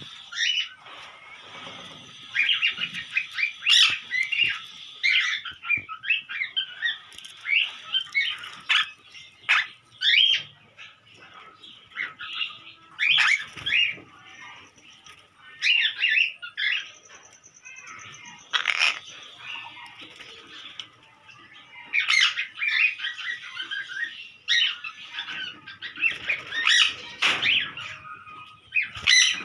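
Sun conures and monk parakeets squawking and chattering, with sharp calls coming in clusters every second or two over a steady background of bird chatter.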